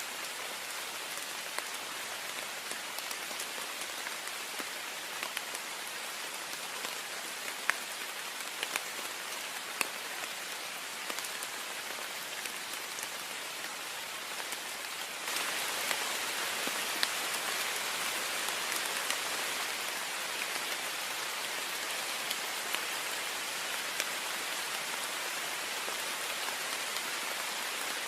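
Heavy rain falling steadily on a window pane: a dense, even hiss with scattered sharper drop ticks. It steps up in loudness about halfway through.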